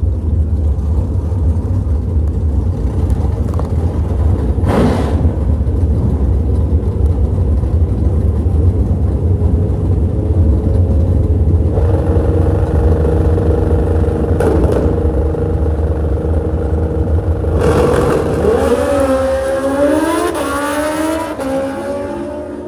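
Drag-race car engines rumbling at the line, then accelerating hard about eighteen seconds in, the pitch climbing and dropping back several times as the cars shift gears.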